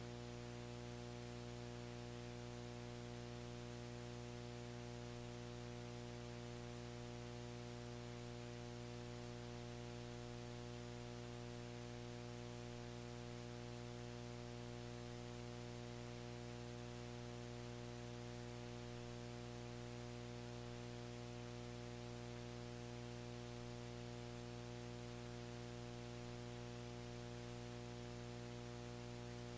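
Steady, buzzy electrical hum over a faint hiss, unchanging, in the sound system of a recording with no one speaking.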